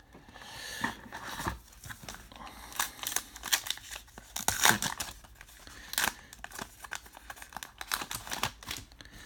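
Crimped foil wrapper of a baseball card pack being pulled out and torn open by hand: a run of sharp crinkles and rips, loudest about halfway through.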